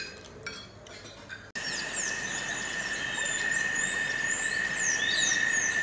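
A few short clicks, then, after an abrupt cut about one and a half seconds in, birds calling with many short downward-sliding whistles over a steady high insect drone.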